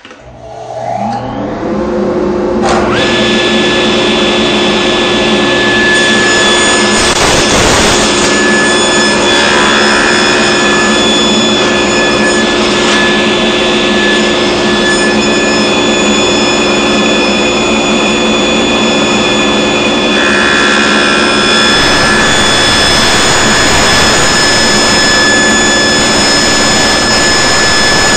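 Table saw switched on, its motor and blade spinning up over about two seconds and then running steadily with a whine. About seven seconds in comes a brief louder burst of noise as the blade cuts into the wooden spline jig.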